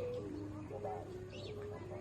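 A Thai kite's large rattan-blade sanu (hummer bow) humming in the wind: a steady tone that steps up and down in pitch every few tenths of a second as the wind changes. Birds chirp briefly above it.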